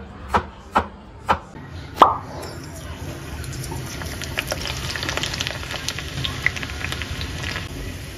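A kitchen knife cutting garlic cloves on a wooden board, five sharp knocks in the first two seconds, the last the loudest. Then sliced garlic sizzling in hot oil in a small pan, a steady hiss with many small pops.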